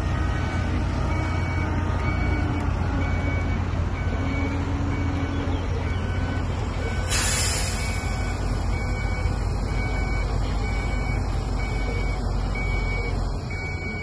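Dump truck's diesel engine running under a reversing beeper that beeps steadily at two alternating pitches. About seven seconds in there is a short, sharp hiss of air. The engine keeps running as the tipper bed rises to dump its load of rock.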